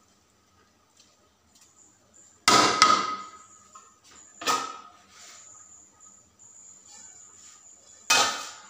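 Aluminium cooking pot and metal utensils knocking and clanking on the stove: three sharp knocks, the first about two and a half seconds in and the last near the end, each ringing briefly.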